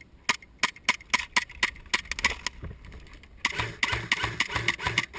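A run of sharp, irregular snaps, then rustling with a steady beat of about three thuds a second from about three and a half seconds in, like quick footsteps through brush.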